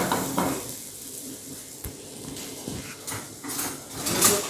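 Rawas fish pieces sizzling in hot oil in a frying pan, a steady hiss with sharper spurts of sizzle about three seconds in and near the end.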